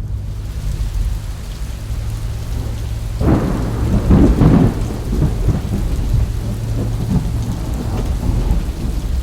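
Steady hiss of heavy monsoon rain over a deep rumble, with a louder roll of thunder that swells about three seconds in and dies away by five seconds.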